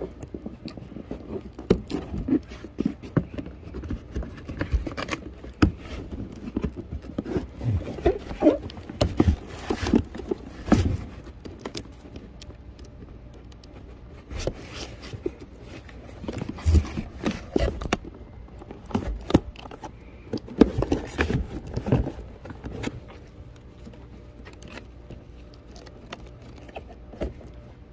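Hands pulling and working at a cardboard shipping box with plastic wrapping inside: irregular rustles, scrapes and taps, with a couple of quieter stretches.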